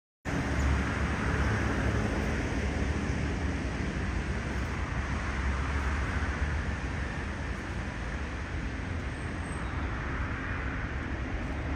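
Steady low rumble and hiss of outdoor noise, cutting in suddenly just after the start and running on evenly.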